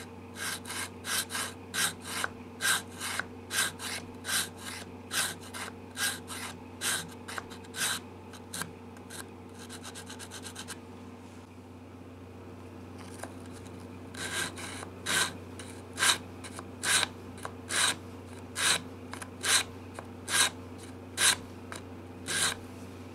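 80-grit sandpaper on a beveled Lexan block rubbed by hand in short strokes against the mahogany heel of a guitar neck along its dovetail, taking the heel down to change the neck angle for a neck reset. The strokes come about two a second, pause about eleven seconds in, then resume a little slower. A steady low hum runs under it.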